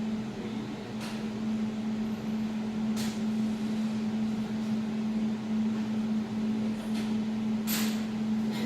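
Jewelry laser welding machine running with a steady hum while it warms up after the laser is activated, with a few short sharp clicks.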